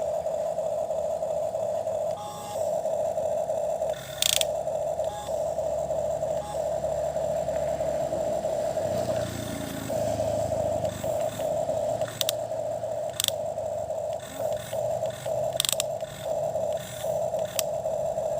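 A toy excavator's small electric motor whining at one steady pitch, then stopping and starting in short spurts through the second half as it is worked on and off, with a few sharp clicks.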